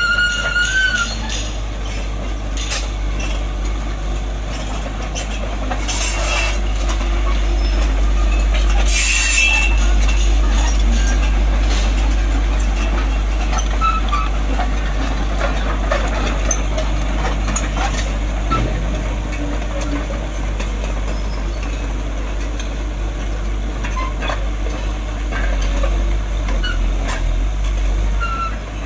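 Caterpillar tracked excavator driving: diesel engine running with a steady low rumble while the steel tracks clank. A brief high squeal from the running gear comes right at the start.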